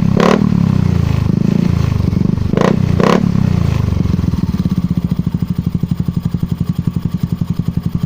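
Yamaha Mio i 125 scooter's single-cylinder four-stroke engine running through an aftermarket ORBR exhaust pipe, blipped three times on the throttle, then settling to a steady idle with evenly spaced exhaust pulses from about four seconds in.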